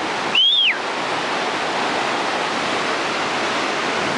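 Steady rush of whitewater pouring through a river rapid. About half a second in, a single short high whistle rises then falls, louder than the water.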